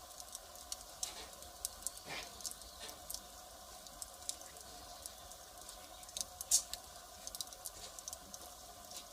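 Wood fire crackling, with irregular small snaps and one louder pop about six and a half seconds in.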